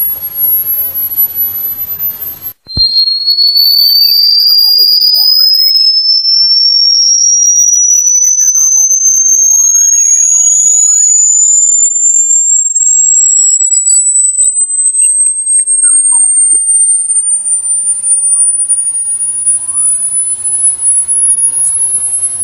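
Electronic rat-repellent sound, a generated pure tone meant to drive rats away: a steady, very high tone over a hiss breaks off about three seconds in, then a single tone starts lower and glides slowly and steadily upward in pitch.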